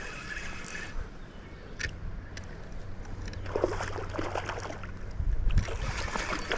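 River water splashing and sloshing in irregular bursts from about halfway through.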